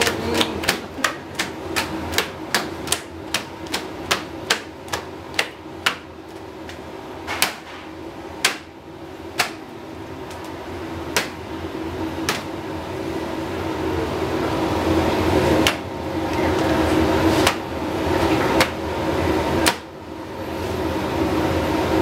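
Repeated sharp knocks, like hammer strikes, coming about three a second for the first six seconds and then every second or two, over a steady hum that grows louder toward the end.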